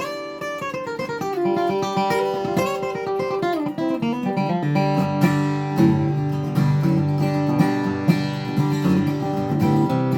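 Boucher dreadnought acoustic guitar with a red spruce top and Madagascar rosewood back and sides, flatpicked in a bluegrass-style passage. Single-note runs step down at first, and fuller strummed bass notes and chords come in about halfway through.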